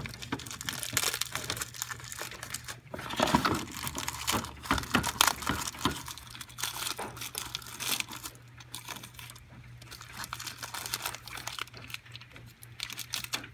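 Clear plastic packaging crinkling and rustling in uneven handfuls as a new cylinder is unwrapped from it.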